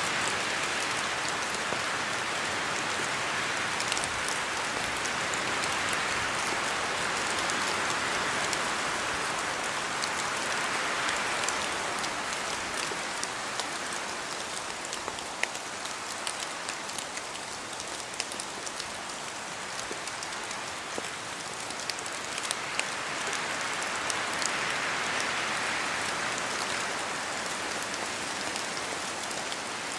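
Steady rain falling through forest trees, with scattered sharp drips among the steady patter. The rushing hiss swells and eases twice, as with gusts of wind in the trees.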